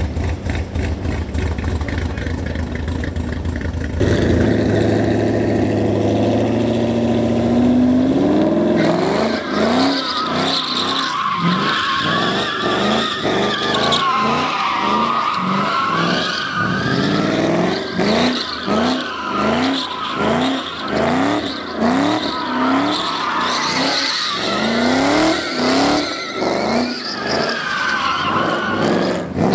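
Chevrolet Camaro with a cammed LS V8 doing burnout donuts. The engine runs steadily, then revs up about four seconds in. From about nine seconds the tyres squeal continuously and the revs rise and fall roughly once a second as the car circles.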